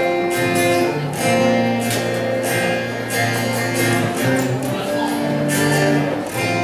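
Instrumental song introduction: acoustic guitar strumming chords over sustained bass notes.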